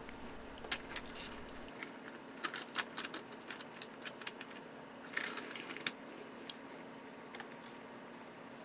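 Faint plastic clicks and rattles of an HO scale model railroad car being set on sectional track and rolled along the rails by hand, with clusters of clicks about two and a half seconds in and again about five seconds in as the wheels drop into place.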